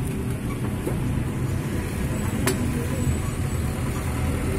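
Steady low rumble of road traffic, with one sharp click about halfway through.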